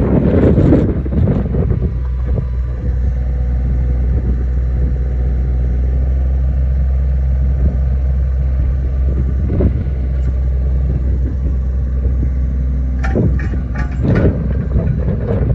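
Takeuchi TB210R mini excavator's diesel engine running steadily, with louder bursts of noise in the first second or so and again about 13 seconds in.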